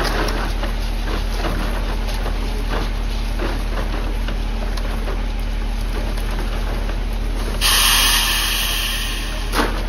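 Steady engine drone of a concrete boom pump truck running during a pour, with irregular knocks as concrete moves through the delivery hose. A loud hiss lasts about a second near the end.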